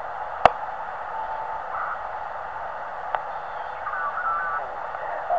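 Band hiss from a uSDX HF SDR transceiver's speaker as it is tuned across the 20-metre band in upper sideband, with brief snatches of mistuned sideband voices and whistles passing by. Two sharp clicks stand out, the loudest about half a second in.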